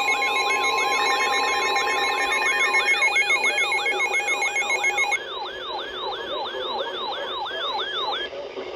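Emergency alert tones. A steady warning tone and a steady two-tone attention signal cut off within the first five seconds. Under them a repeating falling electronic sweep, about three a second, goes on until it stops near the end.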